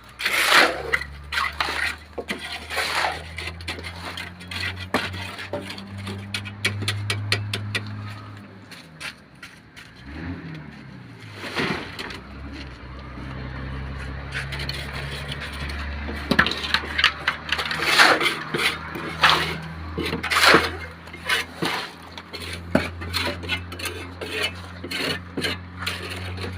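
Construction-site work: a motor runs steadily with a low hum whose pitch dips and climbs again around ten seconds in, while hand tools make repeated metallic scrapes and clinks, busiest in the second half.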